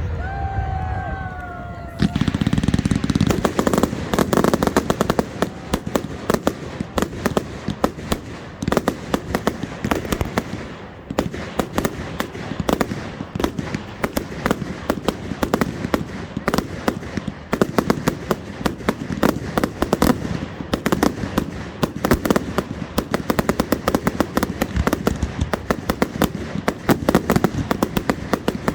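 Fireworks display: from about two seconds in, a dense, continuous barrage of rapid bangs and crackles.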